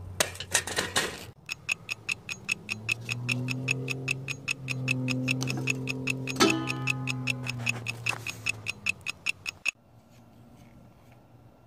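Background music with a fast, even ticking beat, about five ticks a second, over a low held tone. It cuts off sharply near the end, leaving a faint hum.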